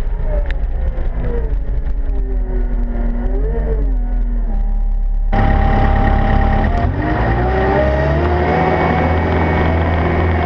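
Caterpillar 299D XHP compact track loader running as it drives: a diesel engine with a whine that rises and falls in pitch, muffled at first. About five seconds in it turns suddenly louder and brighter, with engine and track noise more open and close.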